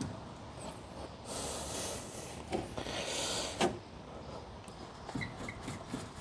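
A man's two hard, hissing exhales as he strains on a wrench against a seized brake-caliper bolt that will not break loose, with two sharp metallic clicks of the wrench on the bolt.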